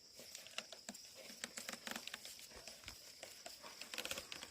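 Faint, scattered clicks and rustles of a pair of ploughing oxen's hooves and the plough working through the soil, with a quick run of clicks about four seconds in, over a steady high hiss.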